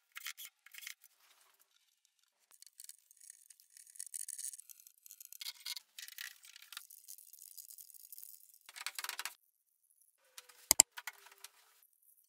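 Hand work on pine: a chisel paring and scraping along a frame's edge and boards being slid and set into a frame, as a series of short scraping and rubbing noises. A single sharp click with a brief ring comes near the end.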